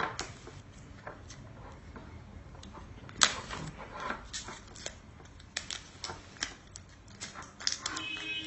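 Handling noise from unpacking a laptop's power adapter cable: scattered clicks and rustles of plastic and cable, with one sharper click about three seconds in.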